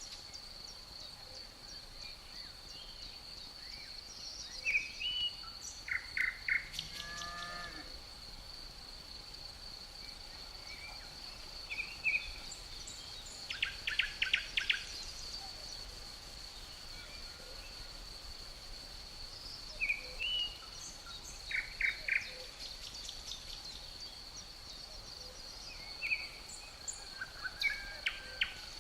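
Nature ambience: a steady high-pitched insect drone with short bursts of bird chirps that come back every several seconds.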